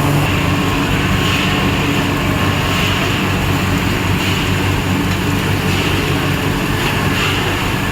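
Filled-pillow snack extrusion production line running: a steady machine noise with a constant low hum.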